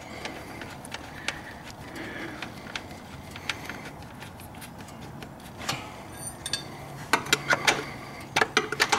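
Light metallic clicks and clinks of the oil-tank drain plug on a Polaris Sportsman 500 HO ATV being threaded back in by hand. Quick clusters of sharper clicks come in the second half.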